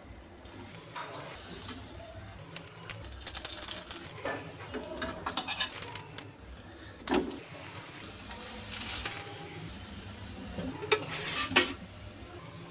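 Paratha cooking on a flat metal tawa: oil sizzling, with a metal spoon clinking and scraping against the pan as the flatbread is turned and pressed. There are a few sharp clinks, the loudest near the end.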